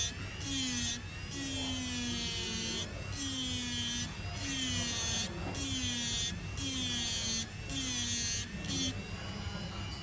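Small electric rotary grinding tool grinding the metal back of an iPhone 7 home button, in short bursts about once a second, each one dropping a little in pitch, stopping about nine seconds in.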